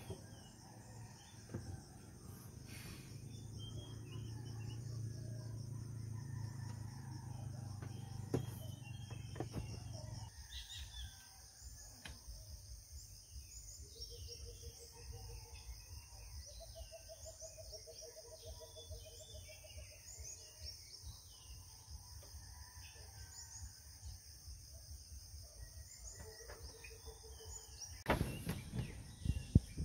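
Forest dawn ambience: a steady, high-pitched insect chorus with birds chirping and calling over it. A low rumble in the first ten seconds stops suddenly, and a few sharp knocks come near the end.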